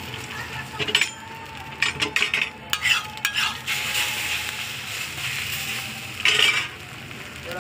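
Metal spatula scraping and tapping on a flat griddle as an egg-coated roti is flipped, over a steady frying sizzle. Sharp scrapes come about a second in, in a cluster from about two to three and a half seconds, and again a little after six seconds.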